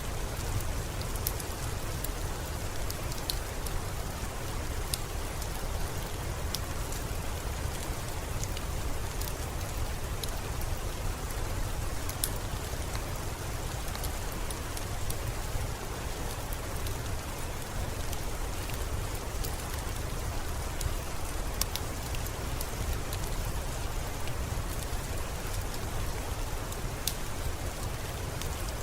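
Steady rain falling, an even hiss, with scattered sharp ticks of single drops or crackles every second or so.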